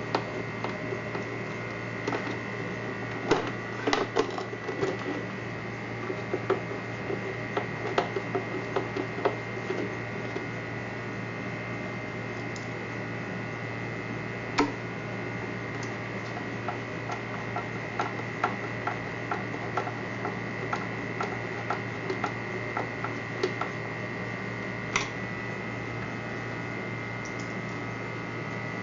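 Steady electrical hum with scattered light clicks and taps of plastic parts and a screwdriver as a portable garment steam iron is screwed back together. The clicks are busiest in the first few seconds, and a run of faint, evenly spaced ticks follows later.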